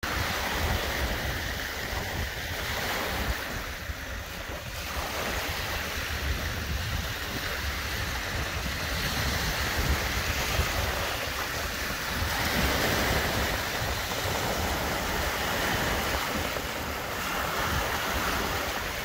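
Lake waves washing onto the shore, swelling and easing, with wind buffeting the microphone.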